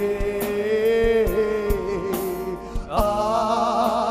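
Tamil Christian worship song: a long held sung note with vibrato over instrumental accompaniment and a steady percussive beat, with a new sung line entering about three seconds in.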